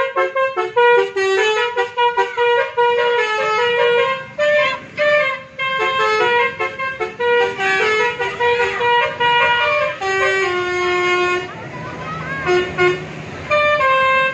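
Basuri multi-tone bus horn (telolet) playing a quick melody of short, stepping notes, a few per second. It breaks off for a moment about twelve seconds in, then starts again near the end.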